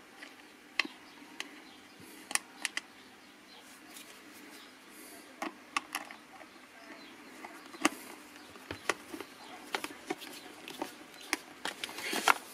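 Scattered light clicks and small knocks from a screwdriver on the small battery-cover screw of a plastic battery-powered paint shaker, with the cover and AA batteries being handled. The sharpest knocks fall about a second in, around two and a half seconds in and about eight seconds in.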